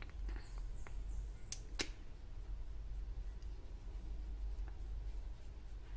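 Quiet room tone with a steady low hum, and a few faint clicks and taps from handling a face-serum dropper and dabbing serum onto the skin.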